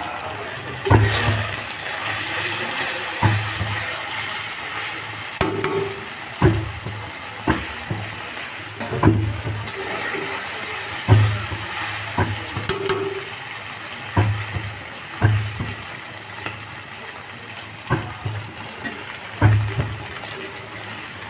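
Onions and dried fish sizzling in oil in a cast-iron karahi, with a metal spatula knocking and scraping against the pan about every one to two seconds as it is stirred.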